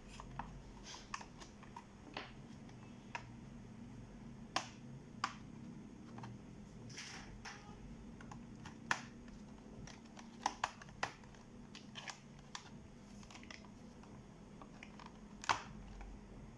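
Sharp, irregular clicks and snaps as the bottom cover of an HP 450 G6 laptop is prised off by hand, its retaining clips letting go one after another; the loudest snap comes near the end.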